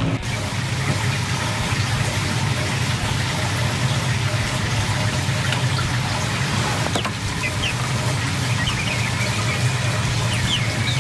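A steady rushing noise with a low hum underneath, and a few short, faint high peeps from young chickens in the second half.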